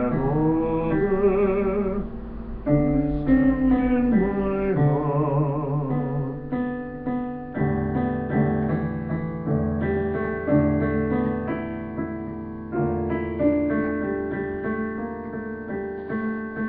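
Digital piano played in slow sustained chords, with a wordless voice wavering and gliding in pitch over it for the first seven seconds or so. After that, held piano chords with deep bass notes carry on alone.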